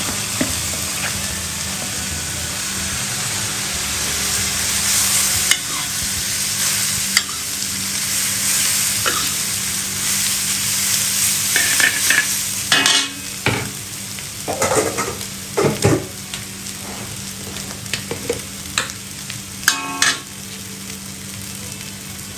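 Fried rice vermicelli (bihun goreng) sizzling in a hot pan as it is stir-fried, with a steady hiss. Utensil scrapes and clinks against the pan come thicker in the second half.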